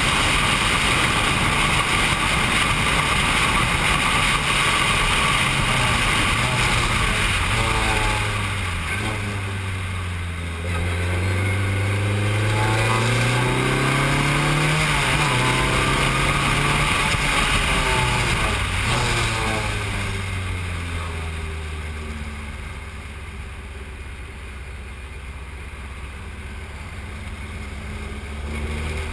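Formula 3 single-seater's engine heard from the cockpit at speed, with steady wind rush. The revs drop about eight seconds in and then climb again through the next few seconds. In the second half the engine eases off and runs quieter for several seconds before picking up near the end.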